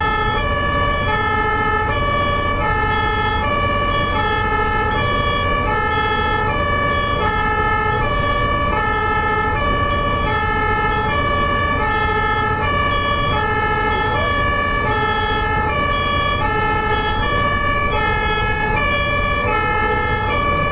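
German ambulance two-tone siren (Martinshorn) sounding continuously, two pitches alternating at an even pace, each held under a second, over a steady low road rumble.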